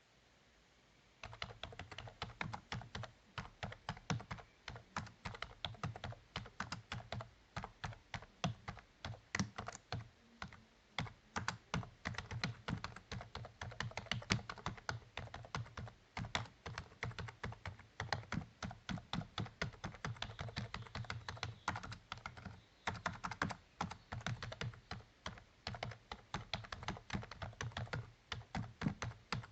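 Typing on a computer keyboard: fast, irregular key clicks in continuous runs, starting about a second in, with a brief pause about three quarters of the way through.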